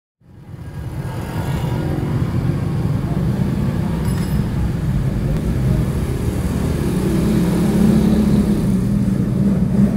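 Motorcycle and car engines running in slow traffic inside an arched gateway passage: a steady low rumble that fades in over the first second.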